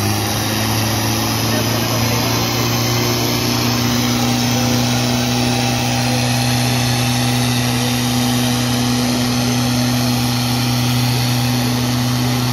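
Diesel engines of two Farmtrac tractors running at full throttle under heavy load, held at steady high revs as the tractors pull against each other in a tug-of-war.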